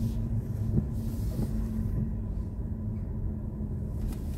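Low, steady rumble inside the cabin of a BMW i4 M50 electric car rolling slowly, with a faint steady hum for the first couple of seconds.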